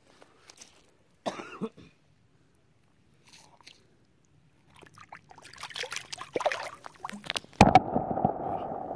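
Water splashing as a largemouth bass is handled and released into shallow water. Then, with a sudden loud onset near the end, comes a steady muffled water sound as the phone's microphone goes under the surface.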